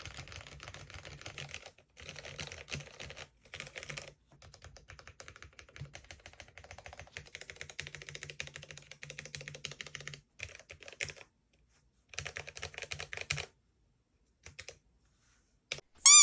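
Cherry MX Board 10.0 LP mechanical keyboard with low-profile Cherry MX Red linear switches being typed on quickly, in runs of keystrokes broken by short pauses; the typing stops a couple of seconds before the end. A brief loud sweeping tone sounds at the very end.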